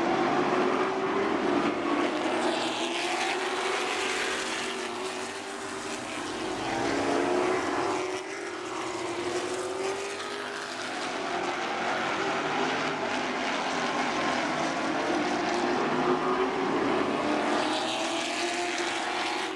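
A pack of Super Late Model stock cars running at racing speed, many V8 engines at once, their engine notes rising and falling as the cars sweep past.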